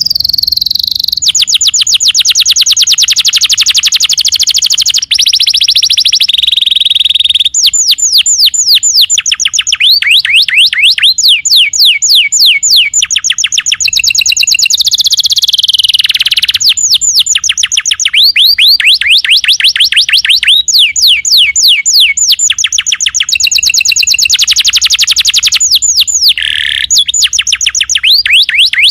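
Domestic canary in full song: a long unbroken run of rapid trills and rolls, high-pitched, switching from one trill type to the next every second or two.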